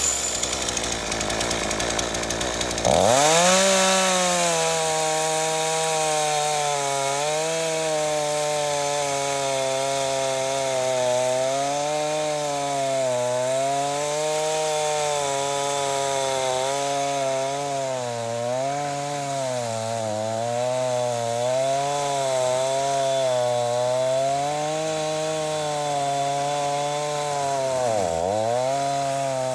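Homelite 42 cc two-stroke chainsaw cutting through a thick log. About three seconds in, the engine's pitch drops sharply as the chain bites, and it runs under load with its pitch wavering slowly up and down, dipping deeply near the end as it bogs in the cut.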